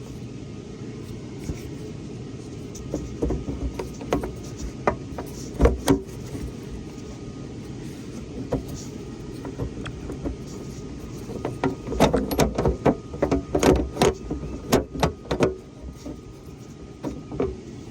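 Scattered metallic clicks and knocks of hand work on a truck side box door latch as its bracket nut is put back on and tightened, coming thickest about twelve to sixteen seconds in, over a steady low rumble.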